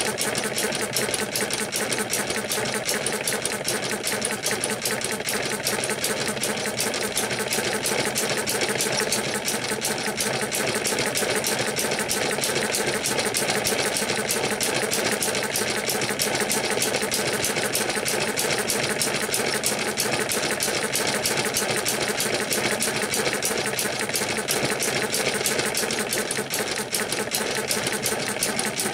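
Eachine ET1 model hit-and-miss gas engine running, a rapid, even mechanical clatter at a constant speed, belt-driving a 12 V DC motor that is working as a generator.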